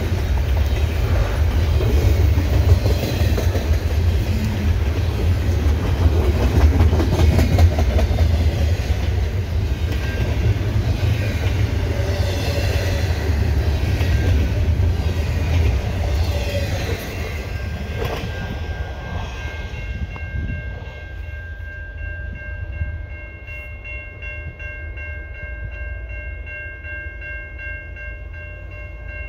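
Freight train rolling past: a loud steady rumble of cars and wheels on rail with some clickety-clack, dying away after about 17 seconds. Over the last ten seconds a train horn sounds one long held chord.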